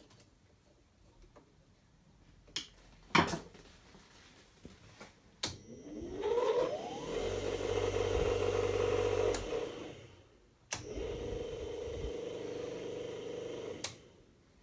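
Arboga UM-400 milling machine's electric motor switched on after a few clicks and a knock. It winds up with a rising whine, runs steadily for about three seconds and winds down. After another click it runs again more quietly for about three seconds, then stops.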